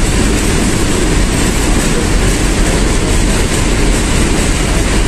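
Loud steady rushing, rumbling noise with no clear rhythm or tone.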